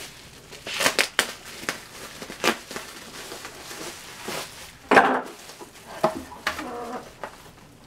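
Bubble wrap crinkling and a cardboard sheet rustling and scraping as they are handled and pulled off a box, in irregular bursts with a few sharper crackles.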